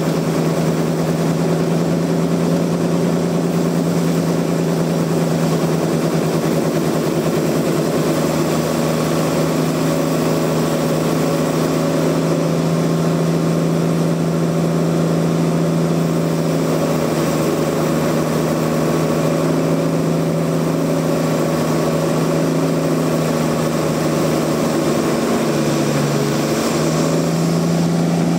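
Sawmill machinery running steadily: a loud, even engine drone with one strong low tone. Its pitch dips briefly a few seconds before the end, then recovers.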